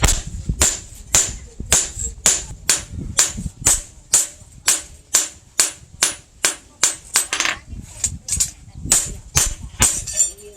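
Hand hammer striking hot coil-spring steel on an anvil, forging a blade: a steady run of sharp metallic blows, about two a second, each with a bright ring.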